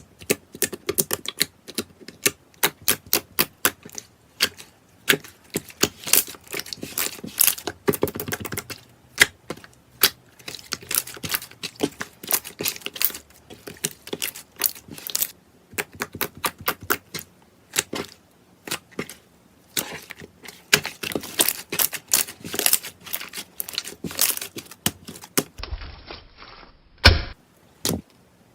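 Slime being poked and squeezed by hand, giving a fast, irregular run of sharp clicks and pops.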